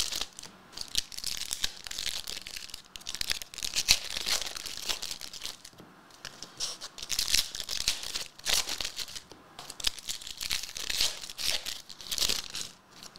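Foil trading card pack wrappers being torn open and crinkled by hand, in irregular rustling bursts.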